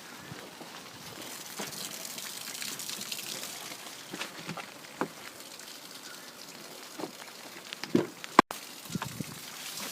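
Water pouring and splashing over a pickup truck's door and seal channel, with scattered knocks and taps. A sharp click about eight and a half seconds in is the loudest sound.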